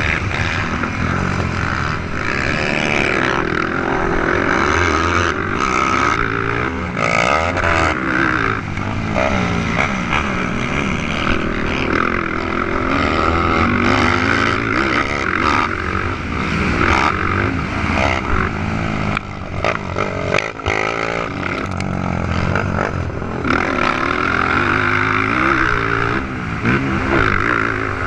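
Several 450-class four-stroke racing quad engines revving hard and easing off, their pitches overlapping and rising and falling as the riders work the throttle.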